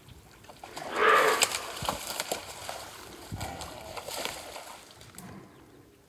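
Splashing and sloshing in shallow, muddy creek water as two whitetail bucks with locked antlers struggle, with scattered knocks. The loudest splash comes about a second in, then it dies down.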